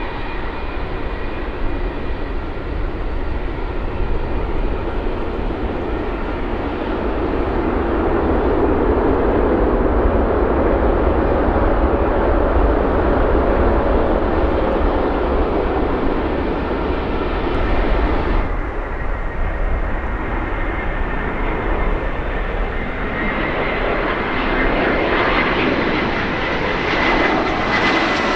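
Boeing 777 jet engines running loudly as the airliner rolls out after touchdown, the noise swelling and then easing as it slows. After a cut, an Airbus A320 on final approach with a steady high-pitched engine whine and a growing engine rush as it nears.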